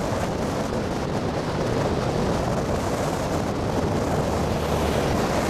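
Wind buffeting the microphone: a steady rushing noise with uneven low rumbling gusts.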